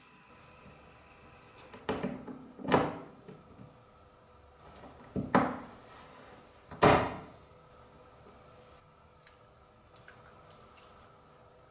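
Small steel parts of a coaster-brake bicycle hub being handled and knocked against each other and the wooden tabletop: three short knocks, each with a lighter tap just before it.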